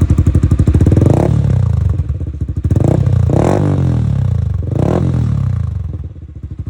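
Yamaha Sniper 155R's single-cylinder engine through a UMA Racing Pipe v3 aftermarket exhaust, idling with a loud pulsing beat and revved in several short throttle blips, then settling back to idle near the end.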